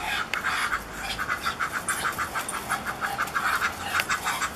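Duck giving a fast run of short, repeated calls, about five a second.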